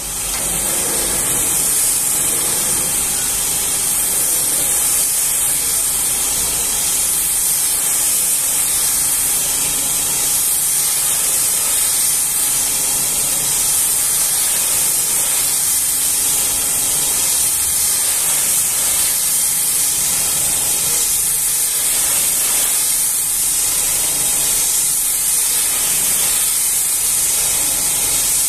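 Pressure washer's high-pressure water jet spraying against the metal tank of a tanker trailer. It comes on abruptly and then holds as a steady, loud hiss.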